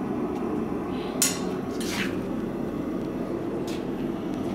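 A few sharp metal clinks of steel being handled in a blacksmith shop, the loudest about a second in, over a steady low roar.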